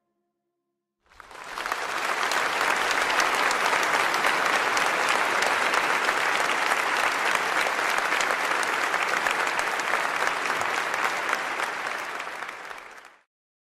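Crowd applauding: dense, steady clapping that fades in about a second in and fades out near the end.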